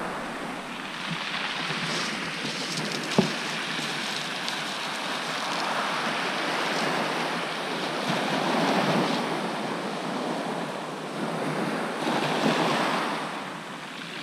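Sea waves washing onto the beach in slow swells, with wind on the microphone. A single sharp click comes about three seconds in.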